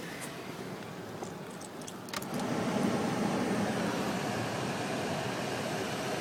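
Car wash rinse: water spraying onto the car as a steady hiss. It grows louder about two seconds in, with a few clicks just before.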